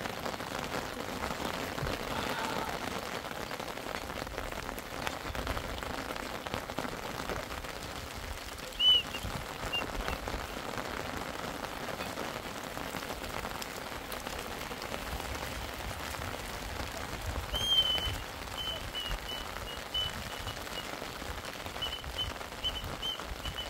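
Steady rain falling, with a run of short high-pitched peeps over its last few seconds.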